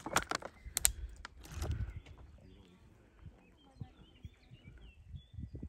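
A few sharp clicks and a brief rustle in the first two seconds, then faint birds chirping over a quiet open field.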